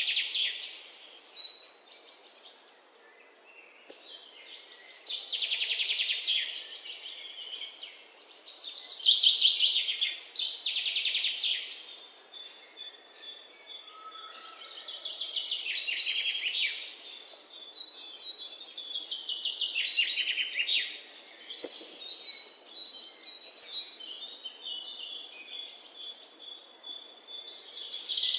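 Songbird singing: repeated fast trilled phrases a couple of seconds long, with runs of high, steady whistled notes between them.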